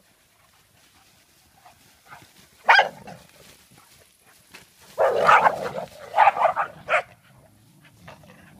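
Dog barking while playing: one sharp bark a little under three seconds in, then a burst of barking from about five seconds in with three more short barks before seven seconds.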